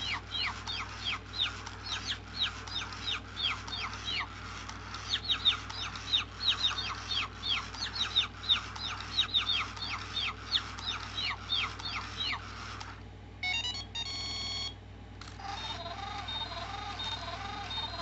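Japanese Chirpy-Chi robot bird playing one of its electronic songs: a rapid run of falling, whistle-like chirps, several a second, for most of the time, then a brief burst of electronic beeps about thirteen seconds in, and then a repeating warbling tune lower in pitch.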